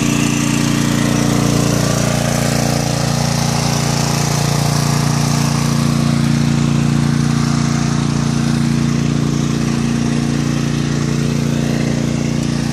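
Small gasoline engine of a portable generator running steadily at constant speed, an even engine hum throughout.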